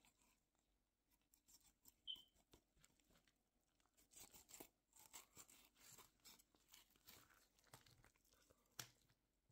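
Faint wet scraping and crunching of a fillet knife cutting through northern pike flesh and along the bones as the fillet is sliced away, a run of short scrapes with a sharper click near the end.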